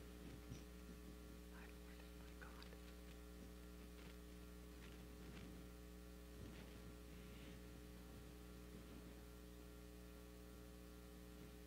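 Near silence: a steady electrical mains hum with a few faint clicks and rustles.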